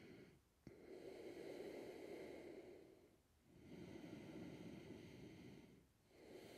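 A person's slow, faint audible breathing, with long soft breaths about every three seconds and brief pauses between them.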